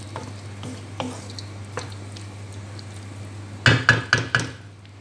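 Wooden spatula stirring chicken liver and gizzards in a nonstick frying pan, the meat sizzling, with light scrapes against the pan. About three and a half seconds in comes a quick run of loud knocks and clatter.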